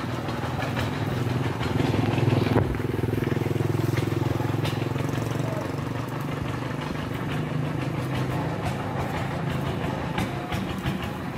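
A small engine running steadily, louder about two seconds in and easing off after about five seconds, with scattered sharp clicks and rustles of leaves and stems being snapped off a bitter melon vine.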